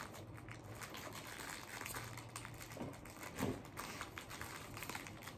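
Faint rustling and crinkling of packaging as items are handled in a box, with one brief louder noise about three and a half seconds in.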